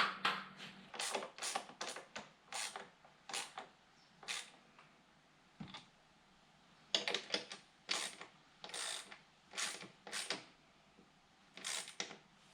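Bolts and hand tools being handled and fitted: irregular short metallic clicks and rattles with quiet gaps, busiest a little past the middle.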